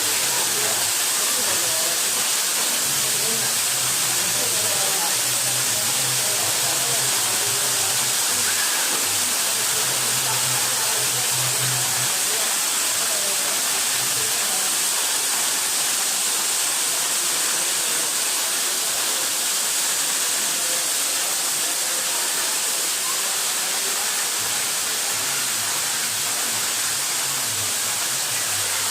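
Waterfall rushing steadily, a loud even wash of falling water.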